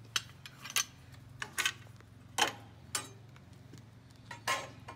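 Sharp metallic clicks and clacks, about eight of them at irregular intervals, from the metal fence rails and fence of a Craftsman 10-inch table saw being handled and fitted into place. A faint, steady low hum runs underneath.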